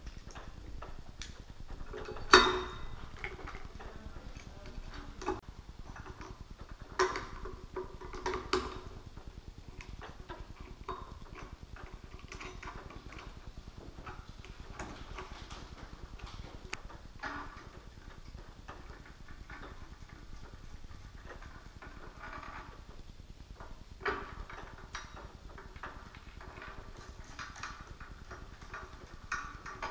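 Metal rigging hardware being handled: a truss clamp fitted and tightened on a loudspeaker's hanging bracket, then a steel safety cable threaded through. Scattered clicks, clinks and knocks, the sharpest knock about two seconds in and a few more around seven to nine seconds.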